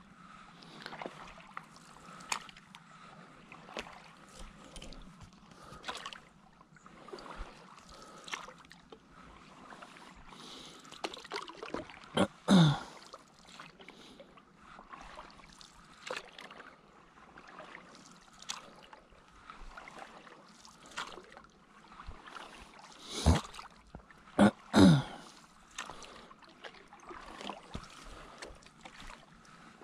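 Stand-up paddleboard paddle strokes in the water: water trickling and dripping off the blade between strokes. Three much louder gurgling strokes stand out, one midway and two close together later on.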